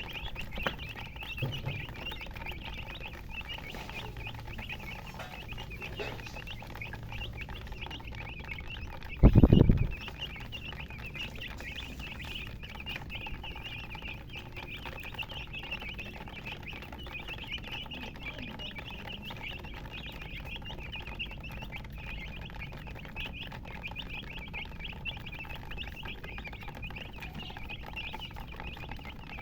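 A brood of baby chicks peeping continuously, many short high-pitched cheeps overlapping. About nine seconds in there is one loud, low thump lasting under a second.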